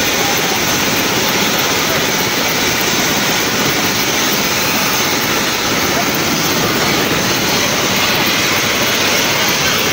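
Crowd noise: many people talking over one another in a jostling throng, over a steady loud roar.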